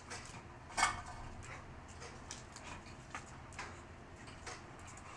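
Pit Bull–Boxer mix dog at play on a concrete deck: one sharp knock about a second in, then scattered light clicks as its claws strike the concrete.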